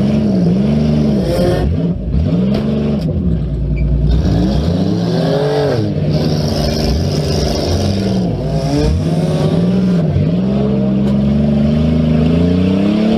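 Demolition derby car engines revving up and dropping back again and again, several at once, with a few short knocks.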